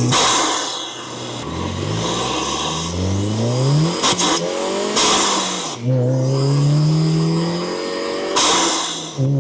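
Volkswagen Golf GTI Mk7's turbocharged 2.0-litre four-cylinder engine breathing through an aftermarket ram-air induction kit, picked up by a microphone in the engine bay. The revs climb and fall back several times, with loud bursts of rushing intake hiss.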